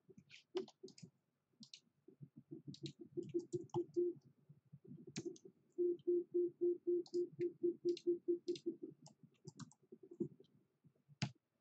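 Computer mouse and keyboard clicks. Scattered single clicks, then an even run of about six clicks a second in the middle that stops near 9 s.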